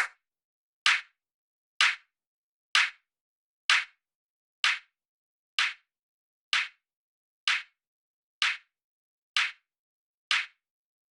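A sampled electronic-music hand clap repeating about once a second, a dozen sharp bright hits with silence between. It loops through the bx_refinement harshness damper set to mid-side, and the hits grow a little softer partway through.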